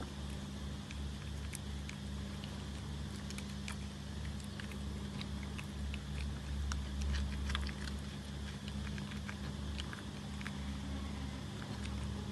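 A cat chewing a small homemade tuna and oat cracker that is crispy outside and chewy inside: scattered small crunches and clicks, thickest in the middle, over a steady low hum.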